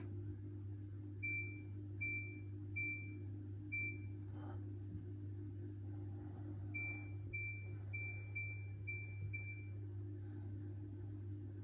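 Hoover H-Wash 600 washing machine's control panel beeping as its controls are worked: two runs of short, identical electronic beeps, four unevenly spaced ones and then about seven quicker ones, over a steady low hum.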